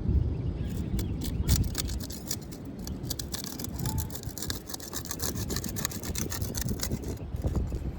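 Rapid, scratchy scraping strokes against asphalt roof shingles, many to the second, rubbing the gritty granule surface.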